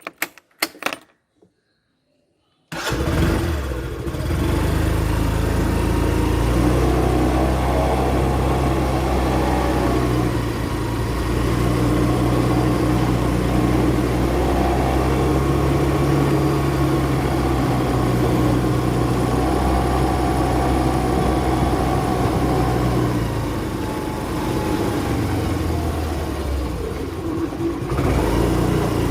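Yamaha scooter engine: a few clicks, then the engine starts about three seconds in and keeps running steadily. Its pitch shifts a little, dips near the end, then rises again.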